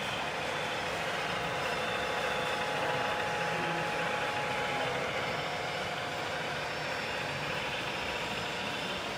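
Model train running on the layout tracks: a steady rolling noise of wheels and motors with a faint steady hum.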